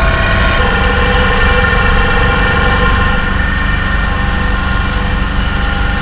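Heavy construction machinery running steadily: a loud engine rumble with several held tones over it. The sound shifts about half a second in.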